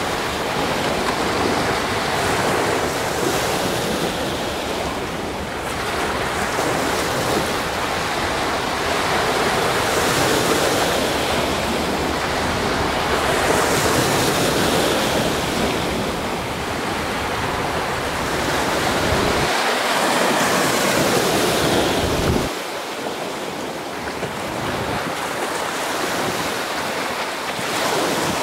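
Sea waves washing in, swelling and easing, with wind buffeting the microphone; the wind rumble eases for the last few seconds.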